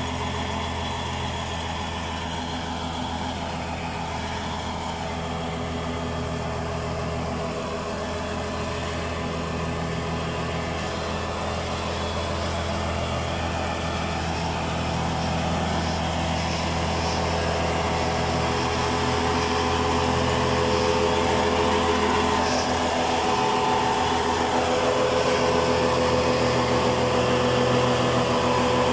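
Tractor engine running steadily while working, most likely pulling a no-till seeder; it grows louder in the second half.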